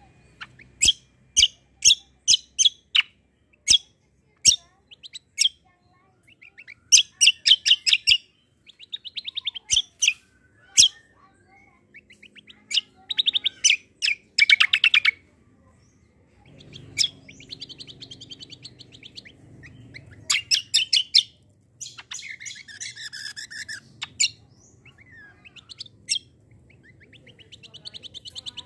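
Caged kecial kombok (cucak kombok) songbird singing: bursts of sharp, high chirps and rapid trilled phrases, separated by short pauses.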